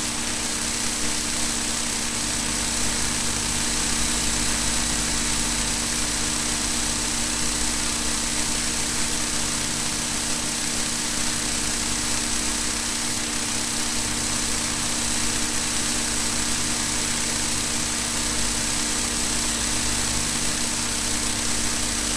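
Steady hiss with a constant low hum, unchanging throughout: the background noise of a silent film's transfer, with no other sound.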